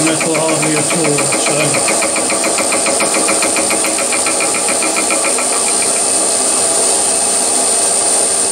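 Milling machine fly-cutting a metal block under power feed, its spindle motor run from a variable frequency drive: a steady high whine over dense machine noise. An even, rapid ticking from the cut runs through the first part and fades about six seconds in.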